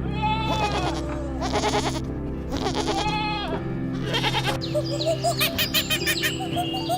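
Three or four wavering bleats of a goat or sheep over background music, followed about five seconds in by a quick run of short, repeated high calls.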